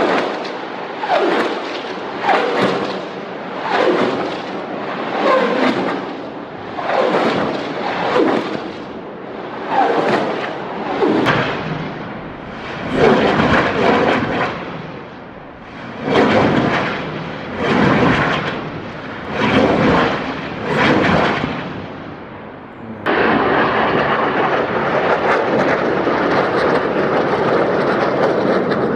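A string of loud weapon blasts, one every one to two seconds, each with a rushing tail that dies away over about a second. About 23 seconds in the sound cuts to a steady roar.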